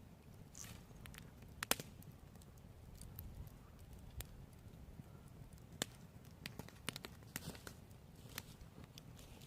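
Campfire crackling faintly, with scattered irregular sharp pops from the burning wood, the loudest about two seconds in and again near the middle.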